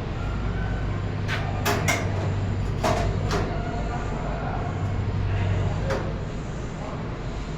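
A steady low mechanical hum, with several sharp clicks and knocks in the first half and one more about six seconds in.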